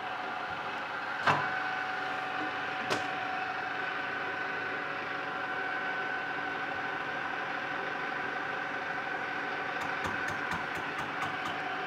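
Mazak 18 x 60 engine lathe running with its spindle at 240 rpm, a large workpiece turning in the chuck: a steady gear whine, with two sharp clicks in the first three seconds and a quick run of light ticks near the end.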